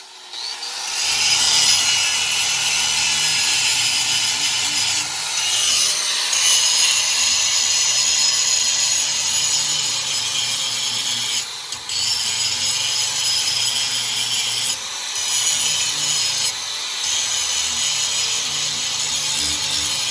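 An 11-amp DeWalt angle grinder grinding the steel edge of a brush cutter blade to sharpen it, in one long continuous grind. It builds up over the first second or two and dips briefly three times in the second half.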